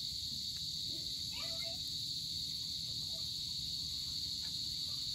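Steady chorus of crickets at dusk, one continuous high-pitched trill.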